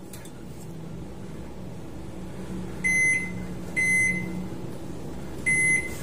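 Stainless-steel microwave oven's keypad beeping three times as the cook time is entered, each a short high beep, over a low steady hum.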